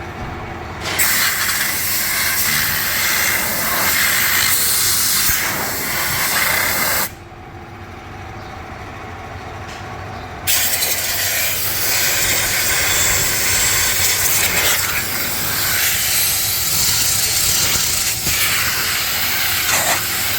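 A loud hissing jet, like compressed air or a pressure spray blasting out of a nozzle, in two long bursts: one from about a second in to about seven seconds, the other starting again at about ten and a half seconds.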